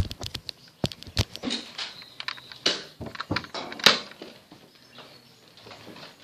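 Irregular knocks and thumps, most of them in the first four seconds, then only faint scattered ticks.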